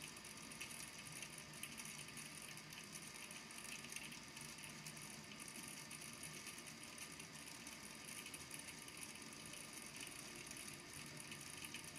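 Small balls in a volcano lamp's water tank tapping on the tank's base and on each other as they fall back: a faint, dense clicking that runs on without a break.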